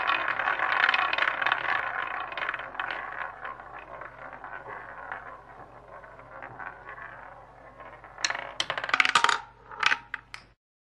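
Sound effect of a coin spinning on a hard surface: a dense metallic whirring rattle that fades over several seconds, then a few sharp clatters as it settles about eight to ten seconds in, cutting off suddenly.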